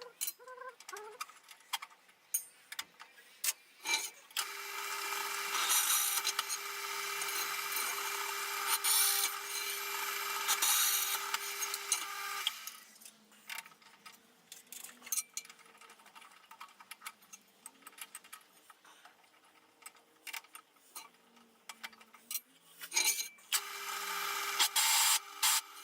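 An electric drill boring holes: the motor runs steadily with the bit cutting for about eight seconds, then stops, with scattered clicks and knocks of handling; drilling starts again near the end.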